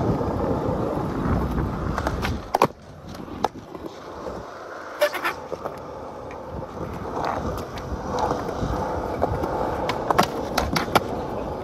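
Skateboard wheels rolling over a concrete skatepark surface, loudest for the first couple of seconds, with a few sharp clacks now and then.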